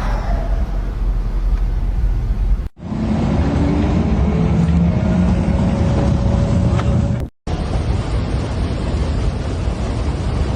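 Road-vehicle noise, split into three segments by two abrupt cuts; in the middle one a faint engine-like pitch rises.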